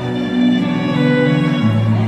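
Instrumental introduction of a slow, sad Vietnamese ballad's backing track, with a violin-like melody over held chords. A deeper bass note comes in about a second and a half in.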